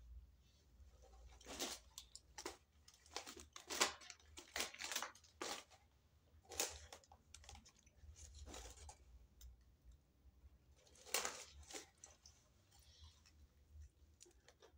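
Paper food wrappers and a paper takeaway bag being handled, rustling and crinkling in a string of short bursts, with a louder cluster again about eleven seconds in.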